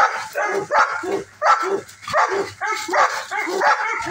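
Dogs vocalizing in rough play-fighting: a rapid run of short barks, about three a second.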